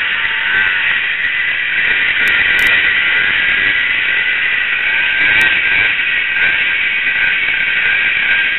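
Snowmobile engine running steadily while the rider cruises slowly, heard as an even, noisy drone mixed with wind over the helmet-mounted camera.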